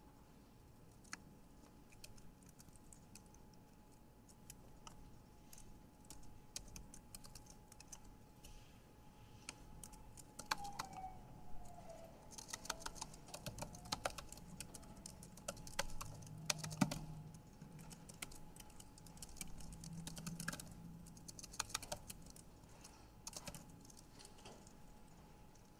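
Typing on a computer keyboard, faint: scattered key clicks at first, then quicker runs of keystrokes from about ten seconds in, over a faint steady whine.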